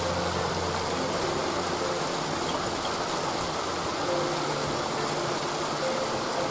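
Waterfall: water falling and rushing in a steady, unbroken roar.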